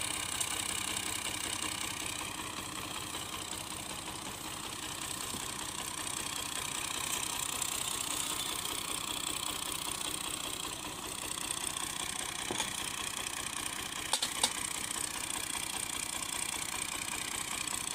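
Fiat 480 tractor engine running steadily at an even speed. Two sharp clicks come close together about fourteen seconds in.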